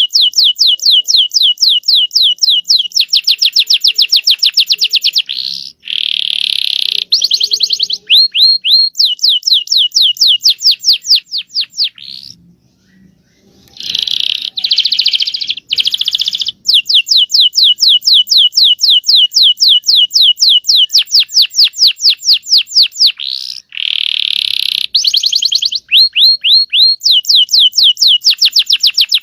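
Domestic canary singing a long song of rapid rolling trills, fast runs of repeated sweeping notes, with a brief pause about halfway through.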